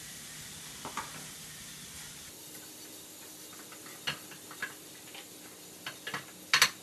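Butter sizzling in a hot frying pan, the hiss easing after a couple of seconds. A utensil clicks and knocks against the pan now and then, loudest near the end.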